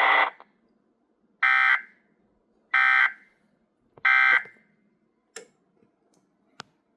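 Three short Emergency Alert System data bursts, each about a third of a second long and spaced about a second and a quarter apart. They are the SAME end-of-message (EOM) code that closes the severe thunderstorm warning broadcast. Two faint clicks follow near the end.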